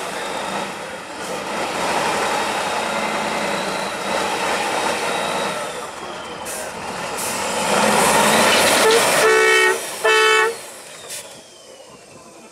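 Six-wheeled Tatra trial truck's engine running hard under load as it crawls over a steep gravel mound, swelling about eight seconds in. Then two short, loud horn blasts about nine and ten seconds in, after which it is much quieter.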